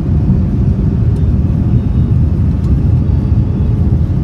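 Cabin noise inside a Boeing 787-9 during takeoff: a loud, steady, low rumble of the jet engines and the wheels rolling on the runway.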